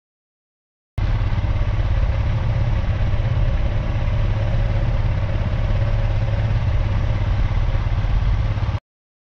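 Motorcycle engine running steadily with a heavy low rumble and clatter. It starts abruptly about a second in and cuts off suddenly near the end.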